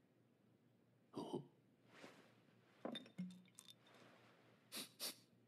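Faint handling of a small porcelain medicine bottle: a clink about a second in and a few small clicks, then two quick sniffs near the end.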